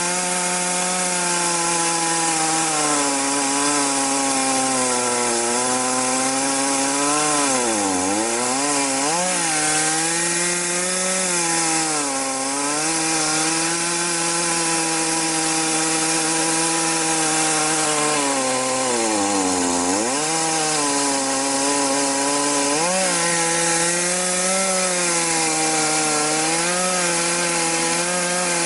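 Chainsaw running at high revs, ripping a log lengthwise along the grain in one long continuous cut. Its engine pitch holds steady but drops sharply and recovers twice, about eight seconds in and again near twenty seconds, with smaller wavers between.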